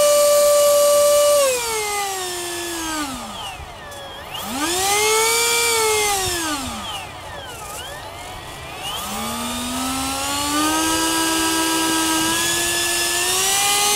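Syncro RC model plane's motor whining as it is throttled while held in hand: high and steady at first, winding down to a stop about three seconds in, revved up and back down once, then run up again and held, climbing slightly near the end.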